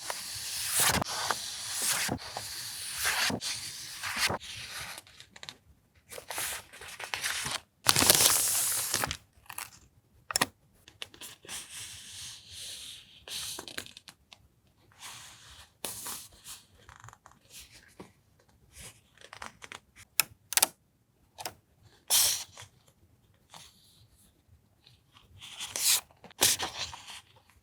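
Paper and plastic stationery packaging being handled, rustling and crinkling in irregular short bursts, busiest in the first few seconds and loudest about eight seconds in.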